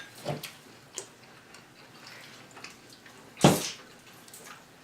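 Close mouth sounds of eating fried chicken wings: quiet wet chewing with a few small clicks, and one louder, short bite sound about three and a half seconds in.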